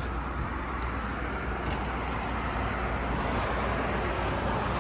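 Steady vehicle and road-traffic noise: an even, constant low hum with no separate events standing out.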